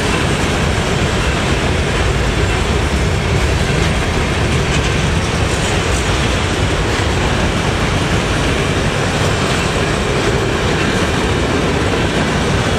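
Freight train cars, mostly covered hoppers, rolling past at speed: a steady rumble of steel wheels on rail.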